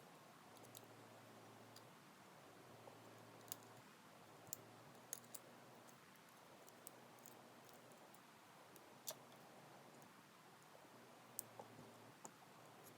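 Faint, scattered small clicks of metal lock pins and tools being handled as a Kaba 8 dimple lock is disassembled, about a dozen over the stretch at irregular intervals.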